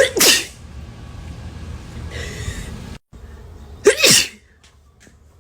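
Two human sneezes: one right at the start and a second about four seconds in, each short and loud, the second ending in a voiced cry that drops in pitch.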